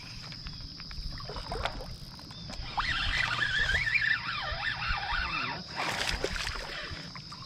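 Water splashing and sloshing as a freshly hooked spotted bass is fought in on rod and reel, under a steady high-pitched hum. A louder wavering, whistle-like sound bends up and down for a few seconds in the middle.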